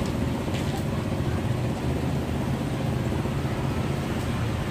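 Steady low rumble and hiss of deep-frying: battered bananas bubbling in a large aluminium pot of hot oil over a gas burner. A few light clicks of metal tongs come against the pot.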